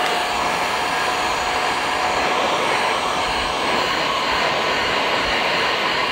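Black+Decker heat gun running: a steady rush of blown air with a faint steady whine, heating the plastic of a GoPro screen surround to soften it.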